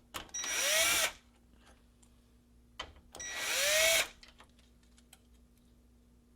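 A power drill runs in two short bursts, each about a second long and a few seconds apart, its motor pitch rising and then falling. It is backing out the screws that hold a circuit board.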